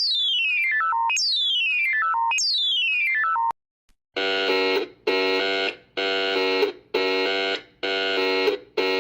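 Two electronic emergency alert tones in turn. First, a Japanese alert of quick synthesized notes falling from high to low, repeated about once a second, which stops about three and a half seconds in. After a short gap comes a harsh, buzzy alarm tone from Madagascar, beeping on and off a little faster than once a second.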